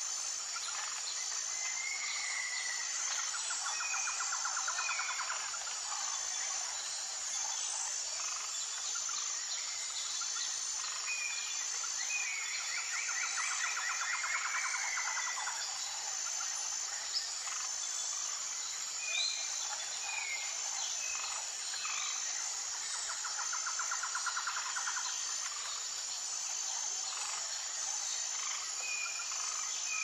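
Forest ambience: birds singing short whistled phrases and trills, a trill coming back roughly every ten seconds, over a steady, high-pitched insect chirring.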